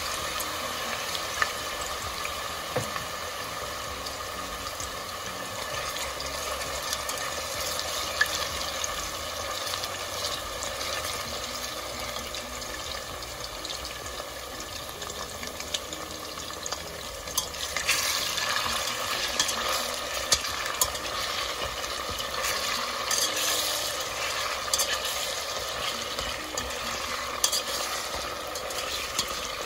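Flour-coated diced pork deep-frying in a pot of oil, sizzling steadily, with scattered clicks of a wire spider strainer knocking against the stainless steel pot as the pieces are stirred. The sizzle grows louder about two-thirds of the way through.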